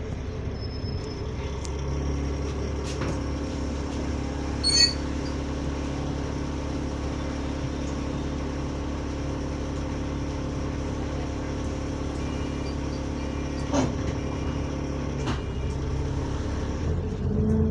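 A bus's diesel engine and drivetrain droning steadily, heard from inside the saloon. The engine has a leaking turbo. There is a short squeak about five seconds in and a knock near fourteen seconds, and the engine note rises near the end.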